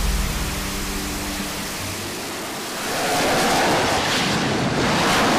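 AV-8B Harrier jump jet's engine running: a steady rushing jet noise with a faint hum beneath it, growing louder about three seconds in.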